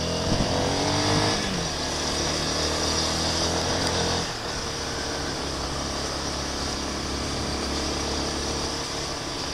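Honda CB Twister 250F's single-cylinder engine running under way. Its pitch rises over the first second or so as it accelerates, holds steady, then drops lower about four seconds in and runs on steadily.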